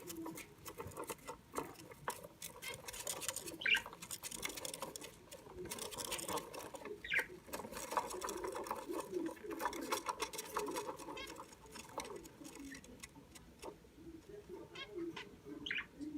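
Budgerigar chattering softly with a stream of fast scratchy clicks, broken by three short, sharp chirps.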